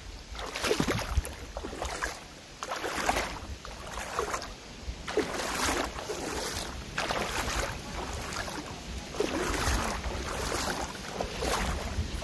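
Feet wading through a cold mountain creek, the water splashing and sloshing in irregular surges about every second or two.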